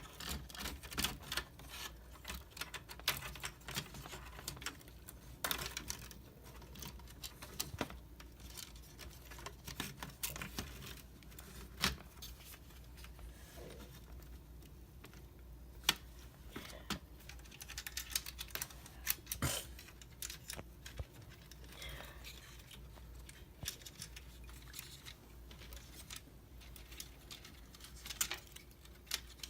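Irregular small clicks and taps of plastic and metal laptop parts being handled and fitted back together, a few sharper clicks standing out.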